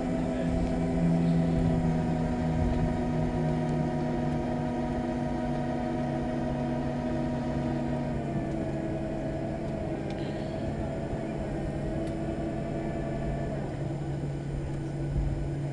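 Cabin noise of a Boeing 737-800 taxiing after landing: a steady engine hum of several tones over a low rumble, with some of the tones shifting in pitch and wavering about eight seconds in.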